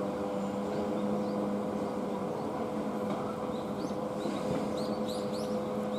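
Steady hum of an idling vehicle engine, with a few held tones, and a few faint high chirps about four to five seconds in.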